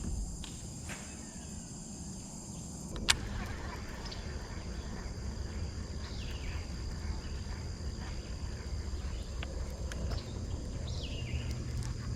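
Riverside ambience: insects droning steadily on two high notes, with a couple of short falling bird calls. Under them a low steady rumble grows from about three seconds in, when a single sharp click sounds.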